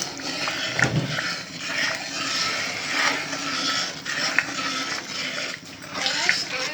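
Thick tomato stew sizzling as it fries in oil in a pot, with a few knocks of a spoon against the pot as it is stirred. The oil has risen to the top, the sign that the stew is nearly done.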